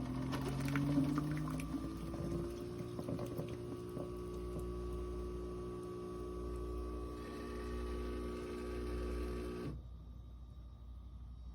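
Keurig K-Supreme Plus SMART pod coffee maker brewing: the pump hums as coffee pours into the cup. The hum rises in pitch over the first couple of seconds, holds steady, then cuts off suddenly near the end as the brew finishes.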